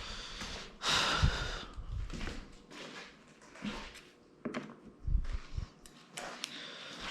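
Scattered clicks and light knocks of small hardware being handled, as a screw is tried in the threaded hole of an audio rack panel, with a longer rustling scrape about a second in.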